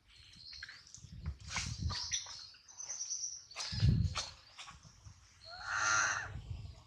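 Baby macaque crying: thin high squeaks, then a louder, fuller cry about six seconds in, over low thumps.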